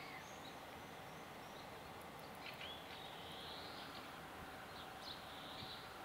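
Small birds singing faintly over a steady outdoor background hiss. A few short chirps come near the start, a longer warbling phrase in the middle, and more chirps about five seconds in.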